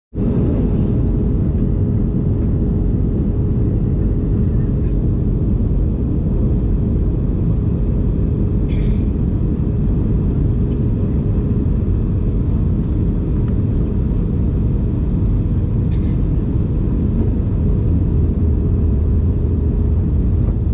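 Steady cabin roar inside an Airbus A319 airliner on descent, engine and airflow noise heard from a seat over the wing, with a faint steady hum running through it.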